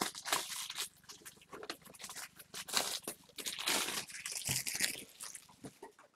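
Trading card boxes and wrappers being handled: irregular crinkling and rustling of packaging that dies away near the end.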